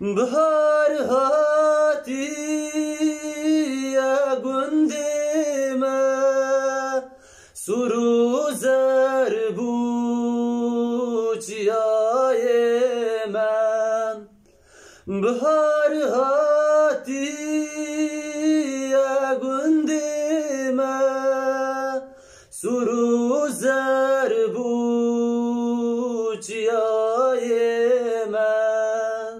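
A man singing unaccompanied, holding long ornamented notes that waver and turn, in four phrases with short breaths between them.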